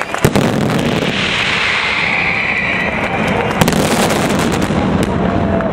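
Firework display at full barrage: a dense, continuous run of aerial shells bursting and crackling, with a sharp bang just after the start and another loud one about three and a half seconds in, and a hissing crackle through the middle.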